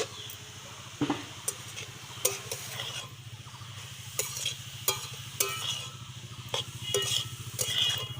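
Stirring grated carrots frying in ghee in a kadai: a spatula scraping and knocking against the pan again and again at an uneven pace, with a faint sizzle.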